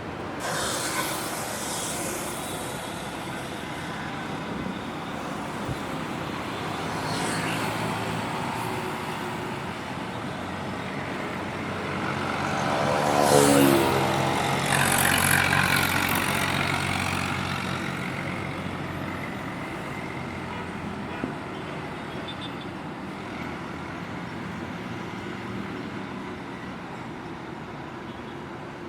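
Roadside traffic on a highway: a steady wash of passing vehicles, with one heavy vehicle passing close about halfway through, its engine note falling in pitch as it goes by.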